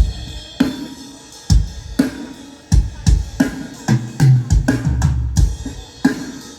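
Drum kit played through a live sound system during a sound check: kick drum and snare hits in a loose, irregular groove, about a dozen strikes, miked and mixed on a Midas M32 digital console. The hits tail off near the end.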